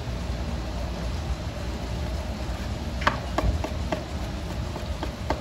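A knife striking a cutting board in a few sharp chops, starting about three seconds in, over a steady low background hum.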